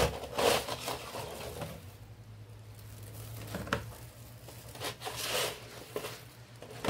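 Handling noises: a few separate bursts of crinkly rustling and light clicks as crisp baked cookies and their container are moved about, with a faint low hum in the middle.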